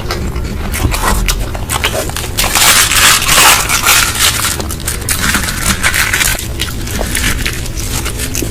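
Close-up chewing and crunching of food, with many small wet clicks and smacks; the loudest crunching comes about two and a half seconds in and lasts a second or so.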